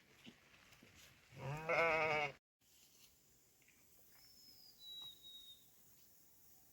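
A goat bleats once, about a second and a half in: a single wavering call just under a second long. Two faint, thin high whistles follow a few seconds later.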